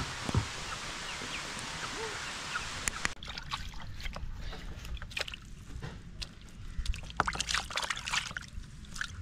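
Water sloshing and splashing with some trickling, in irregular short splashes. Before that, a steady hiss that cuts off abruptly about three seconds in.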